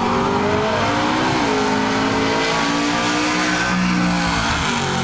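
Drag-race cars accelerating hard down the strip at full throttle. Their engines rev up through the gears, the pitch climbing and then dropping back at each shift, about a second and a half in and again near the end.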